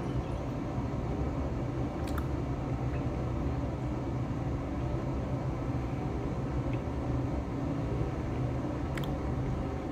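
Steady low hum of room ventilation or air handling, with a faint click about two seconds in and another near the end.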